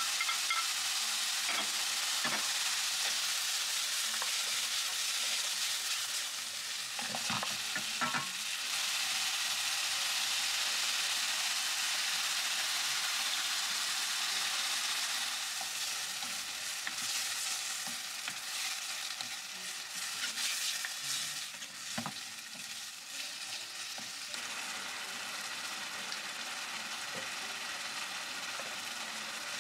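Diced chicken thigh, tofu and green onion sizzling in a frying pan while being stirred, with a few sharp knocks of the wooden spoon against the pan. The sizzle quietens a little about halfway through as the sauce goes in.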